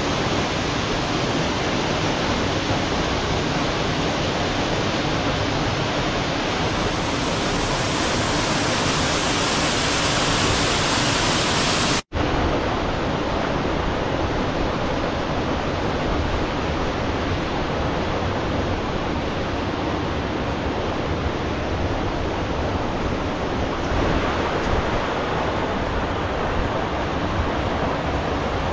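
Steady rushing of water falling and running through a rocky gorge, broken by a short gap of silence about twelve seconds in.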